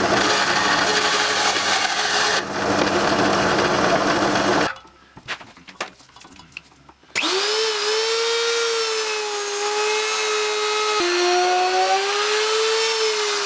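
A bandsaw cuts through wood as a dense rasp. It stops, and after about two seconds of near quiet with a few clicks a router spins up to a steady high whine. The pitch drops a step about eleven seconds in as the router cuts.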